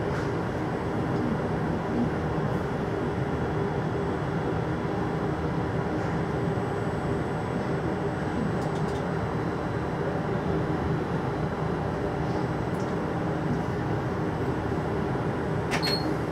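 A GI/1E U-Bahn train standing at a station platform, its equipment giving a steady hum and hiss. A few short clicks come near the end.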